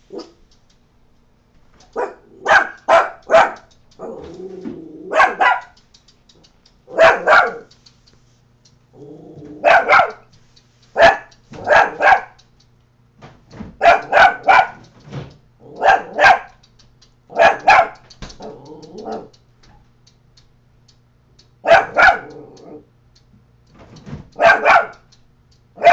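Coton de Tulear, a small dog, alarm barking at a neighbour: sharp barks in quick bursts of two to four with short pauses between, and low growls between some of the bursts.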